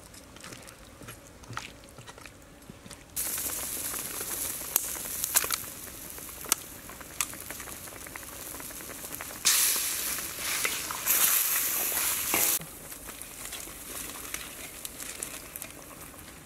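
Soup boiling hard in a steel wok over a wood fire: a steady bubbling hiss with pops. It starts suddenly about three seconds in, is loudest from about ten to twelve seconds, then drops back to a lower simmer with small crackles.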